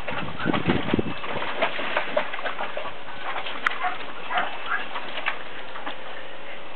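Border collie puppy splashing and pawing through shallow water in a plastic kiddie pool: short, irregular splashes over a steady hiss, with a few brief high chirps between them.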